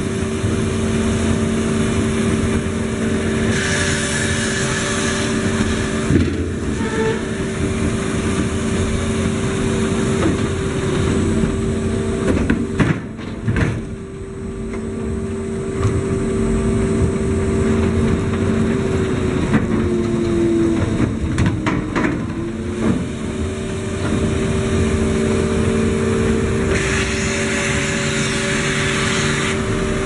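Sawmill log-handling conveyor line running: a steady machine hum with a few sharp knocks, and the hum's pitch sags briefly and recovers about two-thirds of the way through.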